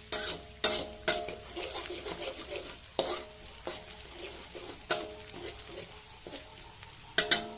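Metal spatula stirring sliced shallots and garlic frying in oil in a wok, over a steady sizzle. The spatula knocks and scrapes the wok irregularly, each knock ringing briefly, with two quick knocks near the end.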